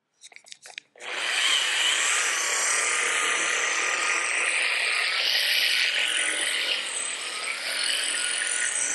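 A dual-action (random orbital) polisher with a foam polishing pad, a few handling clicks and then the motor switched on about a second in and running steadily and loudly, used for the gentle polishing stage of paint correction before waxing.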